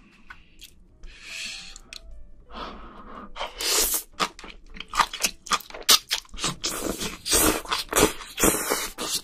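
Close-miked eating sounds: a person biting and chewing crunchy food, the crunches starting a couple of seconds in and then coming thick and fast.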